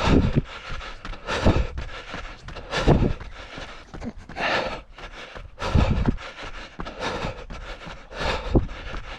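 A runner's heavy breathing, in loud, even breaths about every second and a half.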